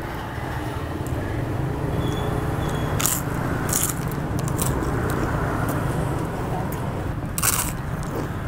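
Crisp fried cracker crunching as it is bitten and chewed: a few sharp crunches about three to five seconds in, and one loud crunch near the end.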